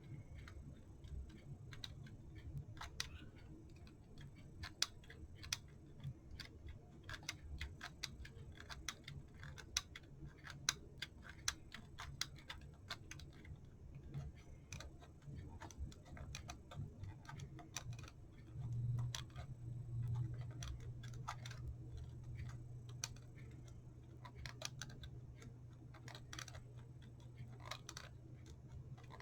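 Wall clock's movement ticking, mixed with small irregular clicks and taps of clock parts being handled during reassembly. A low steady hum comes in about two-thirds of the way through.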